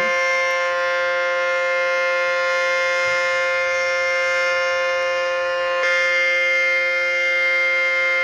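Outdoor tornado warning siren sounding a loud, steady tone held at a constant pitch.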